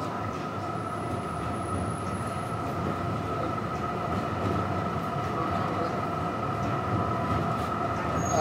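Melbourne tram running along the street, heard from inside the car: a steady rumble of wheels on the rails with a steady motor whine, slowly growing louder.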